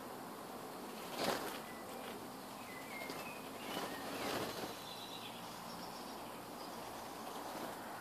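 Birds in a back garden giving a few short chirps over steady outdoor background noise, with a sudden brief rustle-like burst about a second in and a louder noisy stretch around the middle.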